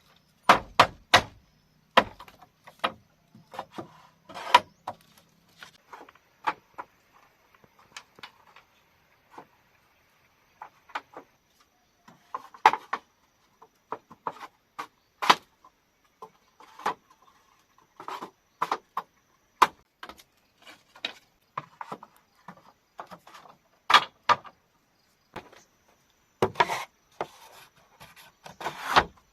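Bamboo being struck and chopped: irregular sharp wooden knocks, about one or two a second, some in quick pairs, with a quicker run of strikes near the end.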